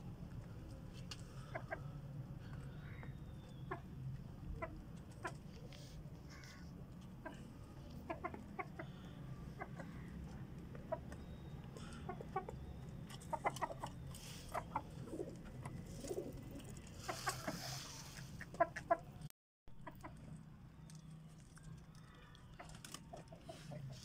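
Rooster and hen clucking in short, scattered notes over a low steady hum. The sound cuts out for a moment about three-quarters of the way through.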